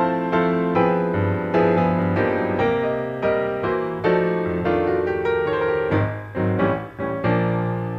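Background piano music: a gentle melody of notes struck roughly two or three times a second, each ringing out and fading.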